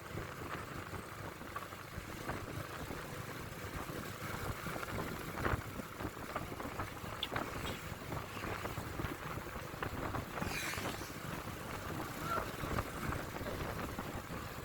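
Steady vehicle and road noise with wind on the microphone, and a few faint knocks.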